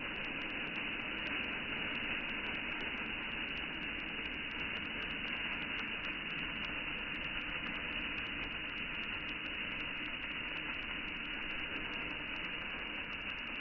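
Uncooked rice grains pouring in a steady stream from a metal bowl onto rice in a stone pot: a continuous, even hiss.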